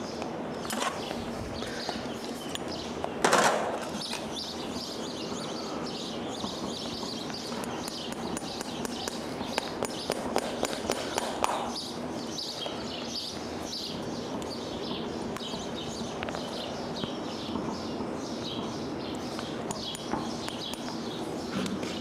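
Farrier's hammer driving horseshoe nails through a polyurethane horseshoe into a horse's hoof: one louder strike about three seconds in, then a run of light taps. Birds chirp in the background.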